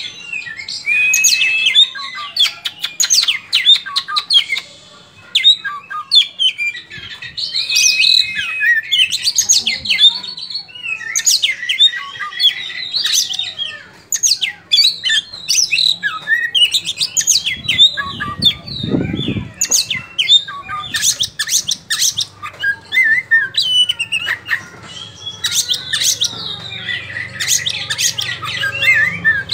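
Oriental magpie-robin singing loudly and almost without pause: a long, varied song of quick phrases made of whistles, chirps and harsh notes, broken by short gaps.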